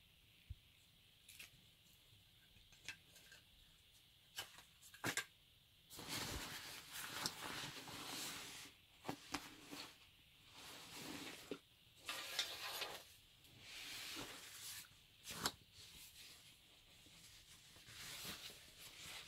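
A grey fabric bag rustling and crinkling in irregular bursts as hands lift it and rummage inside. A few small clicks and taps come in the first few seconds.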